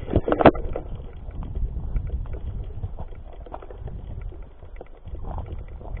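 Footfalls and rubbing noise on a body-worn action camera moving along a dirt forest trail: irregular low thumps and rustle, with a few sharp knocks in the first half second.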